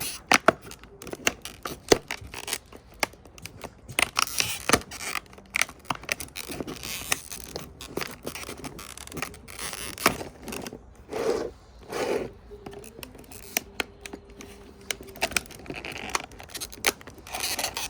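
A hand cutting tool scraping and clicking in irregular strokes as it is worked into a door for a deadbolt; the tool is going dull.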